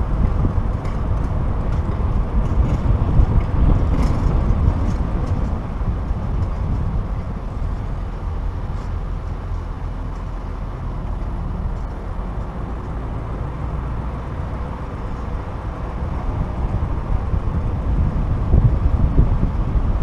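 2014 Ford Mustang GT's 5.0-litre V8 rumbling at low road speed, heard up close from a camera on its hood. The rumble eases in the middle and builds again near the end.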